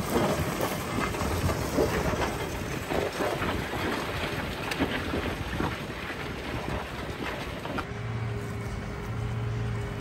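Tractor engine running under load as it pulls a five-furrow reversible plough through stubble, with irregular crackling and clatter. About eight seconds in, a steady humming note sets in as the plough is raised out of the ground.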